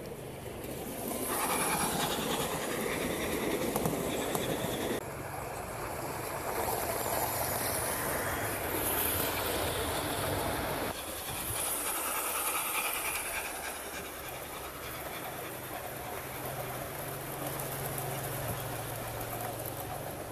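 O gauge model train, a Gresley A3 locomotive hauling a rake of coaches, running along garden-railway track with the steady rolling clatter of its wheels on the rails. The sound swells about a second in and changes abruptly about five and eleven seconds in.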